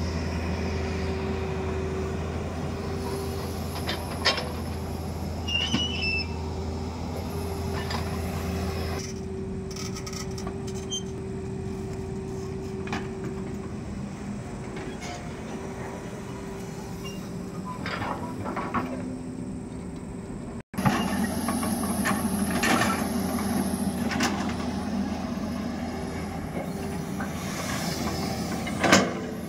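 Tata Hitachi excavator's diesel engine running steadily as it digs sand, with a few knocks and short squeaks from the working arm and bucket. About two-thirds through the sound breaks off for an instant and comes back louder and rougher.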